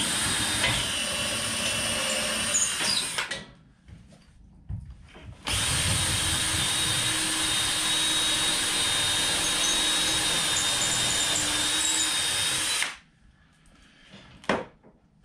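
Cordless drill with a 3/16-inch bit drilling two pilot holes up through the drywall ceiling into the joists, for lag screws. A run of about three seconds, a short pause, then a longer run of about seven seconds that stops suddenly.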